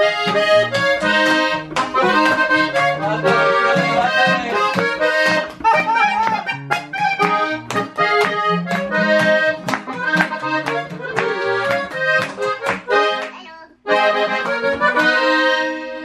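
A diatonic button accordion plays a lively melody, with an acoustic guitar accompanying it. The music breaks off for a moment near the end, then starts again.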